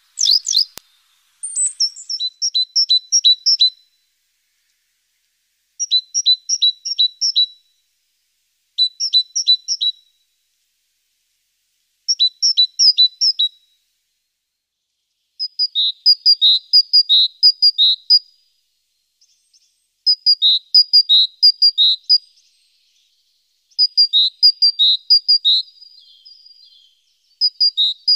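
A songbird singing in repeated short phrases, each a quick run of notes alternating between a higher and a lower pitch, about eight phrases with pauses of a second or two between them. A sharp click sounds just after the start.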